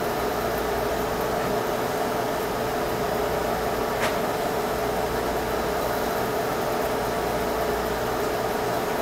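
Steady machine hum with a constant mid-pitched tone and a hiss of air noise, with a single faint click about four seconds in.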